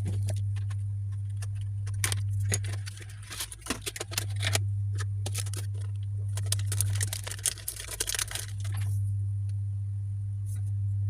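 A quick run of small clicks and taps as a laptop's plastic case and parts are handled during an SSD and RAM upgrade, densest in the middle stretch, over a steady low hum.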